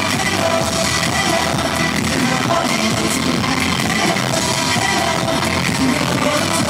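Loud live K-pop concert music with singing, amplified through an arena's sound system and heard across the hall.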